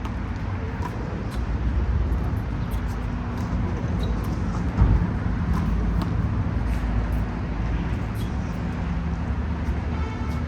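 Steady low rumble of road traffic, with faint scattered clicks and a single louder thump about five seconds in.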